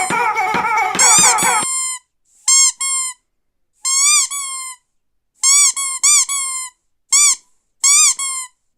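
Squeaky toy being squeezed repeatedly. The first couple of seconds are a rapid, overlapping run of squeaks, then come short bursts of two or three squeaks with pauses between. Each squeak rises and then falls in pitch.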